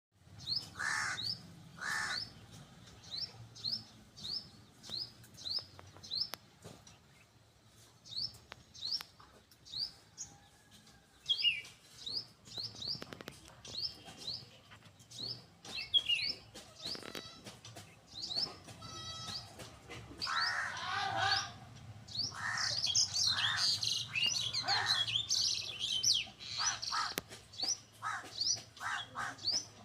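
Birds calling: a steady run of short, high, rising chirps about two a second, joined by lower, louder calls that crowd together for the last third.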